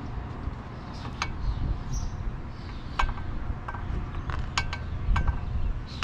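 Irregular sharp clicks and clinks, about a dozen over a few seconds, as small hard parts or tools are handled, over a steady low rumble.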